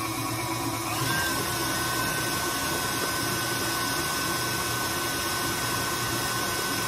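KitchenAid Artisan stand mixer running, its beater mixing powdered sugar into cream cheese frosting in a stainless steel bowl. About a second in the motor grows louder and a steady high whine sets in.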